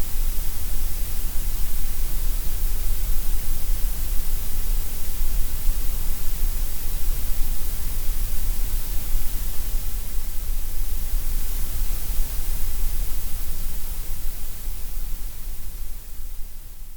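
Steady white noise, an even hiss with no tones or events in it, fading out near the end.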